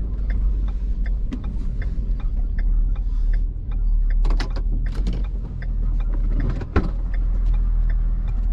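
Ford F-550 car-hauler truck under way: a steady low engine and road rumble with regular light ticks, about three a second. A few sharper clatters come about halfway through, and one sharp knock follows near the end.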